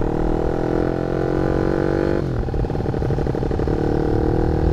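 Honda Sonic 150R single-cylinder four-stroke engine running through a CLD Monster aftermarket exhaust while riding. The exhaust note climbs in pitch, drops sharply about halfway through at a gear change, then climbs again. The exhaust sounds louder and more aggressive than the previous CLD Shark exhaust.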